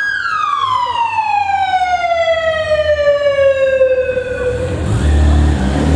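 Japanese police motorcycle siren giving a single wail. It peaks at a high pitch and then glides slowly down for about four and a half seconds until it dies away. A low motorcycle engine rumble sits underneath and grows louder near the end.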